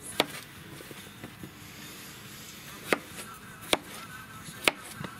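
Kitchen knife cutting raw potato into chunks on a cutting board: several sharp knocks of the blade hitting the board at uneven intervals, the first near the start and the rest in the second half.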